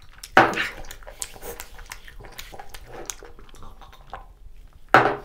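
Close-miked mouth sounds of a person eating: wet chewing with smacking and clicking throughout. Twice, about half a second in and near the end, comes a short loud breathy vocal sound.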